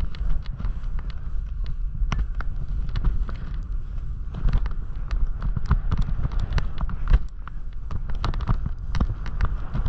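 Wind rumbling on a body-worn action camera's microphone as a snowboard rides over snow, with many sharp, irregular clicks and knocks from the board chattering and the camera rattling on its mount.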